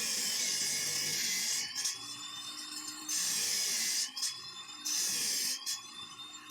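A small high-speed power tool whirring and grinding in repeated bursts of about a second, with a thin whine that rises and falls in pitch between the bursts.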